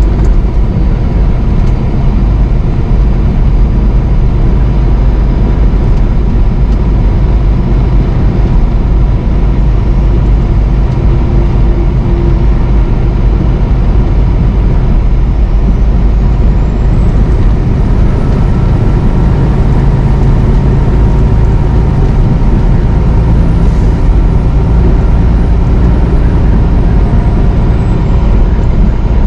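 Steady engine drone and road noise of a semi truck heard from inside the cab while cruising at highway speed. A faint high whine rises about halfway through and fades out near the end.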